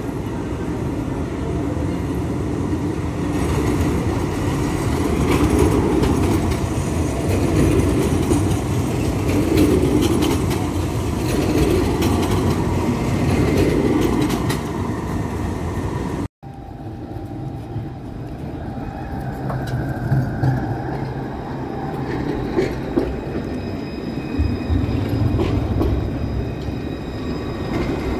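Citadis low-floor tram running along street track, a steady rumble of wheels on rail that swells and fades as it comes by. After a sudden cut about two-thirds through, it continues quieter, with a low motor hum and a few clicks.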